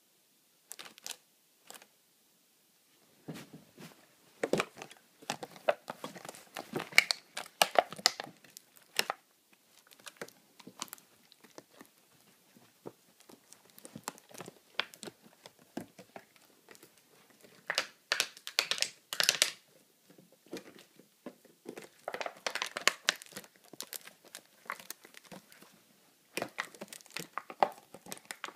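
An empty plastic water bottle crackling and crunching in irregular flurries as a dog paws and mouths it, with a few short pauses.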